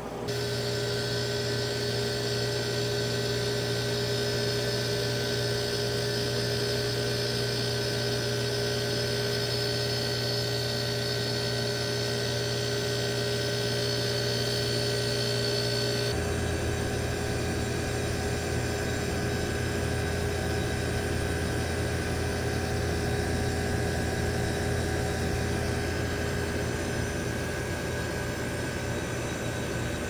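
Electrolux 7500 BTU window air conditioner, built by Sanyo in 1997, running with a steady mechanical hum and a rush of fan air. The sound gets louder just at the start, and about halfway through the higher hiss fades while the low hum grows fuller.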